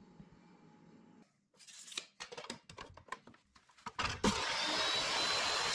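Clicks and knocks of a steel flat bar being handled and set in a Ridgid metal-cutting chop saw, then about four seconds in the saw's motor switches on and runs loud and steady, the blade spinning free.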